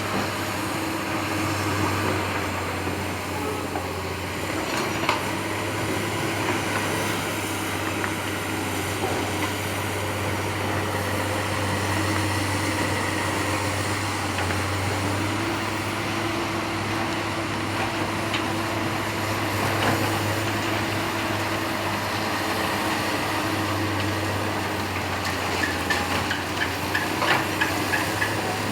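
Excavator and dump truck machinery running with a steady hum, with a few isolated clicks and a quick run of light clicks near the end.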